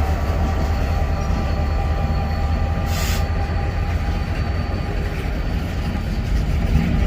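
Freight train rolling past: a steady low rumble of wheels on rail, with faint steady squealing tones and a short hiss about three seconds in.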